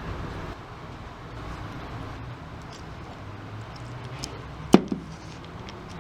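An RJ45 crimping tool clamping a connector onto Cat5e cable wires: one sharp loud click with a quick smaller follow-up click about three-quarters of the way in, with faint handling ticks around it over a steady low hum.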